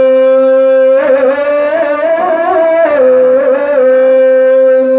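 A man's voice chanting one long, drawn-out melodic note through a microphone: the prolonged closing vowel of a Quranic recitation. It is steady at first, wavers in ornamented turns in the middle, then settles back to a held note.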